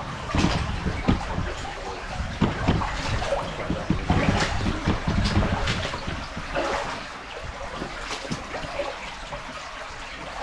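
Footsteps splashing through shallow running brook water, with irregular knocks and scrapes. The steps are busiest for the first six seconds or so, then thin out over the steady trickle of the water.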